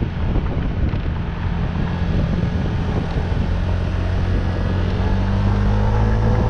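A vehicle engine running on the move, with wind buffeting the microphone; the engine note climbs slowly in the last couple of seconds as it speeds up.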